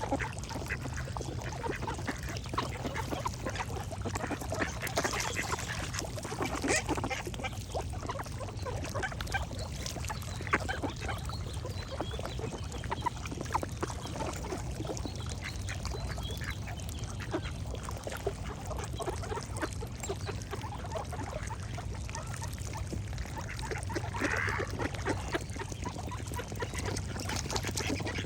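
Ducks quacking on and off, with birds singing faintly in the background over a steady low rumble.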